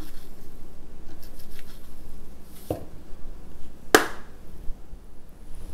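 Salt shaken from a small plastic container into a plastic blender jar of roasted peanuts: faint light ticking, then two clicks, the second sharp and the loudest about four seconds in.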